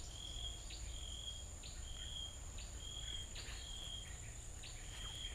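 Insects calling in the open: a steady high-pitched buzz, with a short chirping call repeated about once a second.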